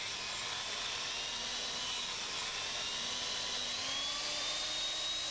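Rail end-surface grinder's abrasive wheel grinding the steel end face of a rail square: a steady high-pitched whine over a gritty hiss, the pitch drifting slightly as the wheel is moved up and down.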